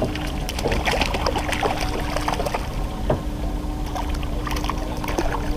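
Boat on the water with its motor giving a steady low hum, under wind and water noise, with scattered light clicks and knocks.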